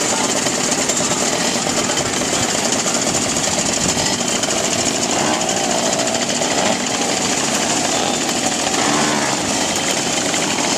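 Many two-stroke moped engines running together at idle, a dense, steady rapid rattle and buzz.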